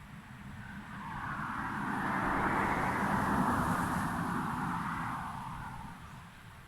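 A car driving past, its tyre and engine noise rising to a peak mid-way and fading away again.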